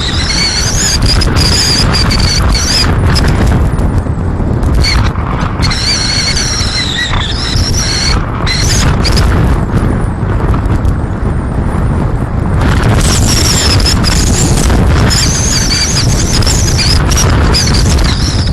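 Strong wind howling and buffeting the microphone: a heavy low rumble throughout, with a high, wavering whistle that comes and goes three times.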